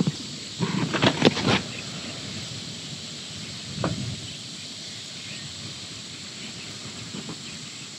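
Steady outdoor hiss, with a quick cluster of sharp clicks about a second in.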